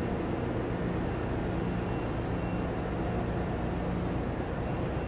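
Ship's engine-room machinery running: a steady drone with constant low hums under an even mechanical hiss.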